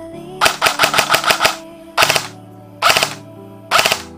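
ICS MP5 electric airsoft gun (AEG) firing: a rapid full-auto burst of about ten shots lasting about a second, then three short bursts of a few shots each as its gearbox cycles.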